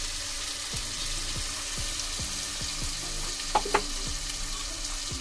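Tomato-onion masala frying in oil in a metal cooking pot, a steady sizzle, with two quick taps a little after three and a half seconds in.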